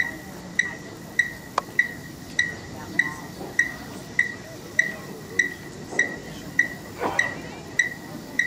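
Electronic metronome beeping through a loudspeaker, one short high beep about every 0.6 seconds (about 100 beats a minute), setting the tempo for a marching band drill. A voice calls out faintly about seven seconds in.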